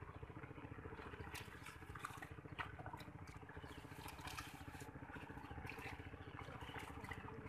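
A small engine runs steadily with a fast low putter, under short, scattered splashes and squelches of hands working through shallow muddy water.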